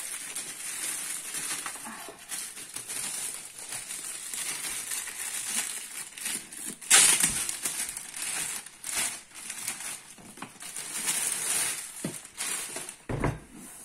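Clear plastic packaging bag crinkling and rustling as it is pulled off a hard-shell carrying case, with a louder crackle about halfway through and a dull thump near the end.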